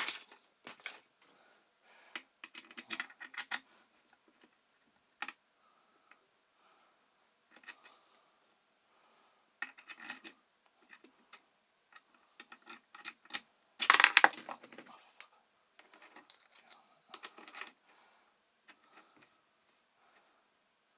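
Small metal hand tools and parts being handled and set down: scattered clicks and light metallic clinks, with one louder ringing clatter about two-thirds of the way through.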